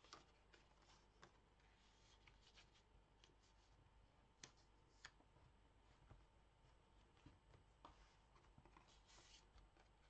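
Faint rustling and light taps of handmade card-and-paper folio pages being handled and unfolded, with two sharper clicks near the middle and a longer rustle near the end.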